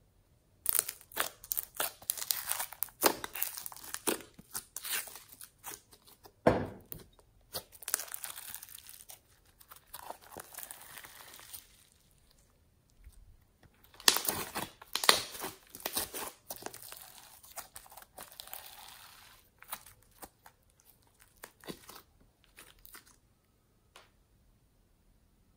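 Green bubbly slime being stretched, folded and pressed by hand, making sticky clicking and crackling sounds in bursts. There is a short pause about halfway through.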